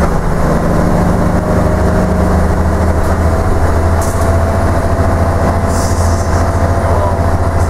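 Leyland Titan PD2 double-decker bus's diesel engine running steadily while under way, a deep, even drone heard from inside the upper deck, with a faint whine rising slightly in pitch.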